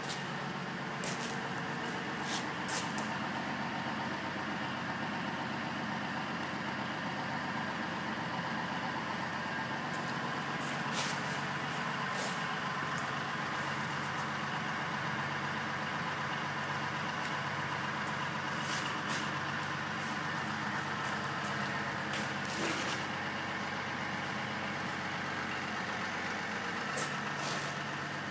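An engine idling steadily, with about ten sharp clicks and knocks scattered through.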